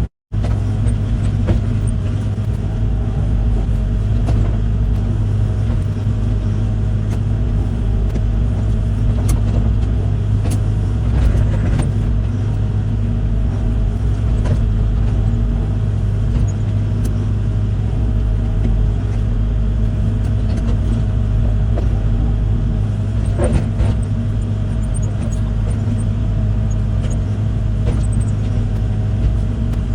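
Heavy equipment engine running steadily at land clearing, a constant low drone, with a few sharp clicks and cracks scattered through it.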